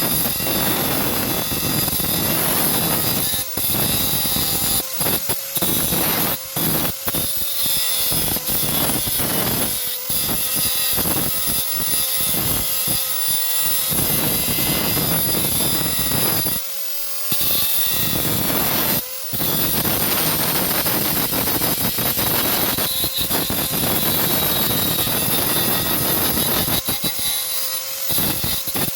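Handheld power tool running against car body metal, stripping away rust, with the steady run broken by short pauses where it lets off, the longest about 17 seconds in.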